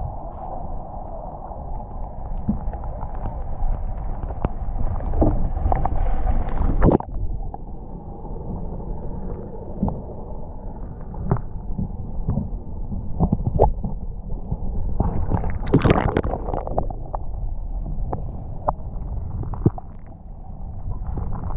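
Muffled water heard underwater beneath a kayak: a steady low sloshing and gurgling with scattered small knocks and clicks, and louder bursts about seven seconds in and again around sixteen seconds.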